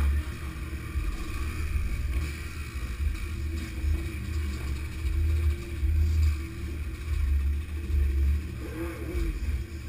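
Several motorcycles riding together, their engines running, with heavy wind buffeting on the microphone.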